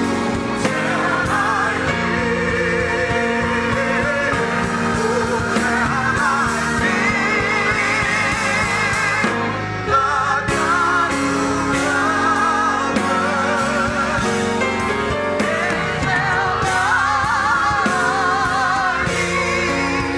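Gospel music with singing voices over instruments, continuous throughout.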